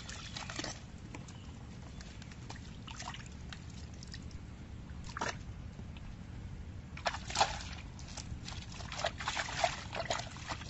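Hands scooping and slapping through a shallow pool of muddy water: scattered splashes and sloshes that come thicker and louder in the second half.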